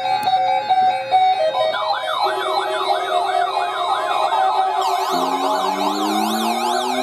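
Weather radio receivers' alarms going off as they are activated by the weekly NOAA Weather Radio test. An electronic melody of short steady notes gives way, about a second and a half in, to a wailing electronic siren that sweeps up and down. About five seconds in, a second, faster warbling siren and low rising tones join it.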